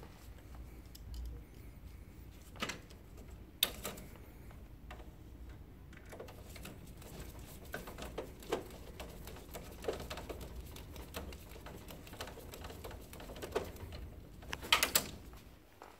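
Hard plastic parts clicking, tapping and knocking as they are handled and seated inside a laser printer's fuser area. There are irregular small clicks throughout, with one sharp click a few seconds in and a louder cluster of clicks near the end.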